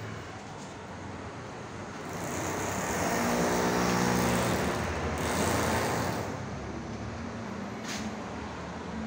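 A motor vehicle's engine grows louder from about two seconds in and fades again after about six seconds, over a steady low hum. A sharp click comes near the end.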